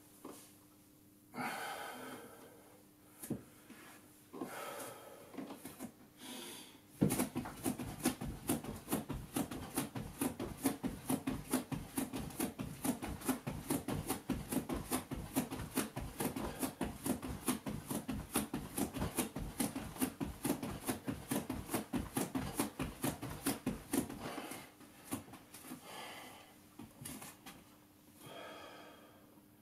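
A fast, even run of thuds from a person jumping or stepping in place during a workout exercise, starting about a quarter of the way in and stopping suddenly near the end. Heavy breaths come before and after the thuds.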